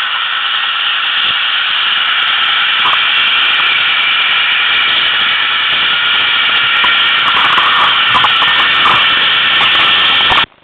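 ATV engine running as the quad rides along a wooded trail, a loud steady hissing drone, with a scatter of clicks and rattles from about seven seconds in. The sound cuts out abruptly at the very end.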